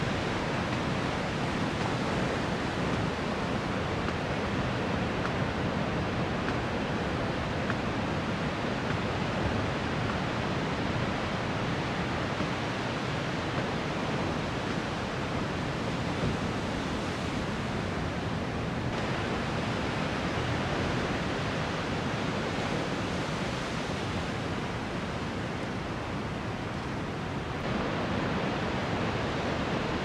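Large ocean surf breaking, a steady wash of waves with no distinct single crash standing out. The tone shifts abruptly twice, past the middle and near the end.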